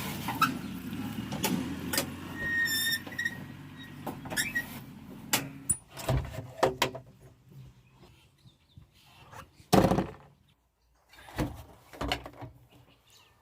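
JCB 3DX backhoe loader at work: a low engine drone under a run of metal knocks and clanks, with a short squeal about two and a half seconds in. The drone drops away about halfway through, and the loudest sound is a heavy thump near the end.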